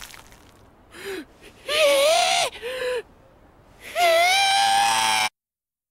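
A man's voice crying out in anguish: a loud cry, a shorter second one, then a long drawn-out wail that cuts off suddenly.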